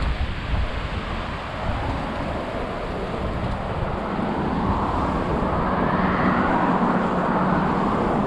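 Wind rushing over the microphone during a bike ride, with a motor vehicle's road noise swelling up about halfway through and holding.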